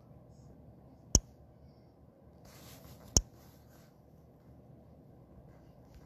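Three sharp single clicks, about two and three seconds apart, over a faint low hum, with a soft hiss lasting about a second and a half around the second click.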